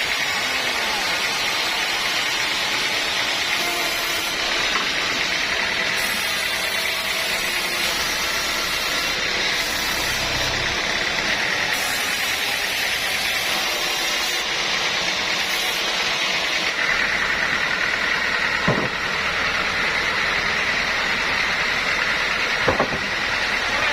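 Sawmill machinery running steadily, a constant mechanical din with a steady high tone, and two sharp knocks in the last few seconds.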